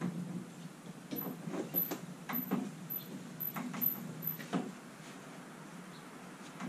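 Overhead rope-and-pulley hoist being hauled, the line running through the blocks in about a dozen short pulls as a wooden sailboat on its frame is lifted, quieter for the last two seconds.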